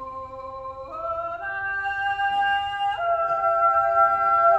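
Mixed choir of men's and women's voices singing a wordless Swiss natural yodel: long-held chords that swell in loudness and shift to new notes in steps, about one second in and again about three seconds in.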